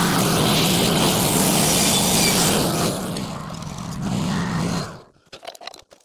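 Wood-Mizer LT15 Go band sawmill running, its band blade cutting pine, with a steady hum under loud hissing noise. The noise eases about three seconds in and the mill stops abruptly about five seconds in, followed by a few light knocks.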